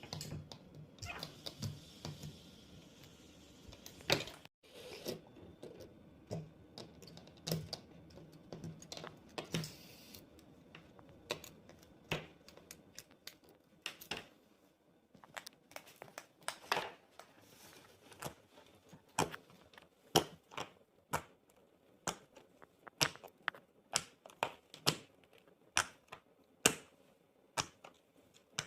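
Silicone pop-it fidget bubbles being pressed in, a run of short, sharp pops that are irregular at first and come about one or two a second in the second half.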